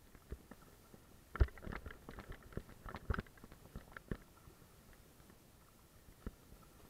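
Kayak paddle strokes: a double-bladed paddle dipping and splashing, with a scatter of small splashes and knocks, busiest from about one and a half to four seconds in.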